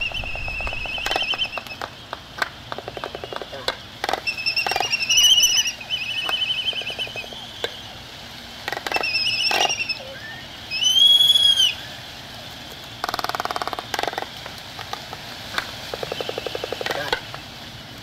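A colony of black-browed albatrosses calling, one call after another. Some calls are rapid rattles, some are high drawn-out notes that rise and fall, and there is a short harsh burst about two-thirds of the way through.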